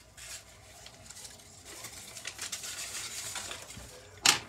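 Sheet of paper being cut with scissors and handled: a dry crinkly rustle with small snips. Near the end comes a single sharp clack, the loudest sound.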